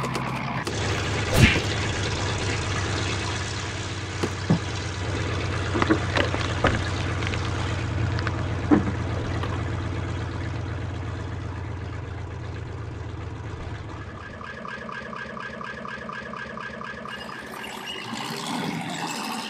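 Lego Technic electric motors and gear trains of a remote-controlled Lego tank whirring with a steady hum, with several sharp plastic clicks and knocks. About two-thirds of the way in the hum stops and a quieter, fast, even rattle takes over.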